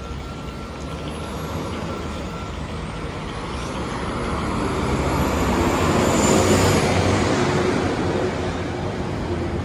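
Road traffic at a busy city junction: a large motor vehicle passes close by, its engine and tyre noise swelling to a peak about six seconds in and then easing off.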